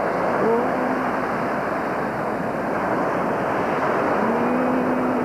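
Ocean surf washing steadily, with wind on the microphone. A voice sings a short note about half a second in and a long held note from near the end.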